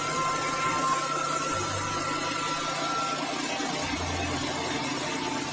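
KD 550 HM mini rice mill running steadily while milling paddy, a constant dense mechanical din from its drive and milling rotor. A faint thin whine fades out about halfway through.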